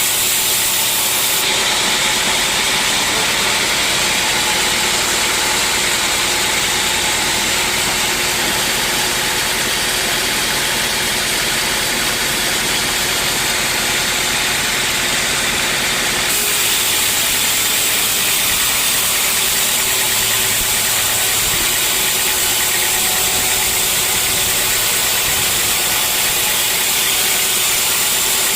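Sawmill saw running steadily at a loud level, a dense, even rush of noise strongest in the upper range. Its high end changes about a second and a half in and changes back at about the halfway point.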